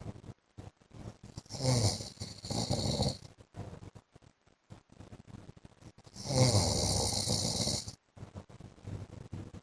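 A man snoring in his sleep: two loud rattling snores, about a second and a half in and again about six seconds in, with quieter breathing between them.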